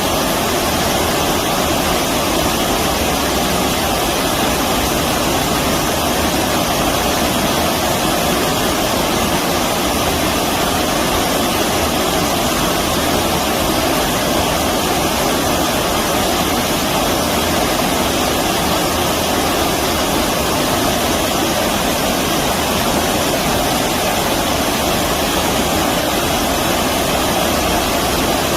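Flowing stream water rushing steadily, a dense, even wash of water noise with no separate events.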